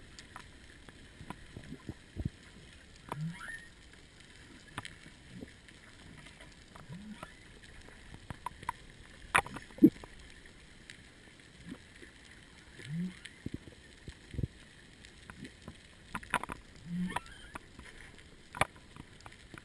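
Humpback whale song heard underwater: short low moans that bend in pitch, repeating every few seconds, with scattered sharp clicks and knocks between them.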